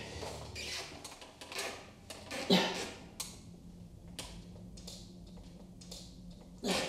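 Scattered soft knocks and creaks from a wheelchair as a man shifts his weight and leans out of it toward the floor, with louder knocks about two and a half seconds in and near the end.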